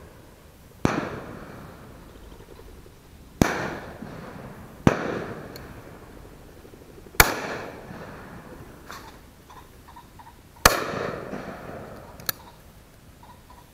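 Five shotgun shots, each a sharp crack trailing off over a second or more; two come about a second and a half apart. A short, quieter click follows near the end.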